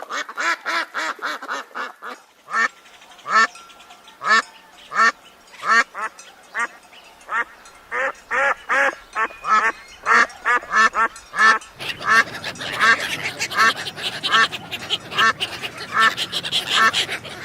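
Duck quacking over and over in quick runs of short calls. About twelve seconds in, a steady background hiss comes up under the quacking.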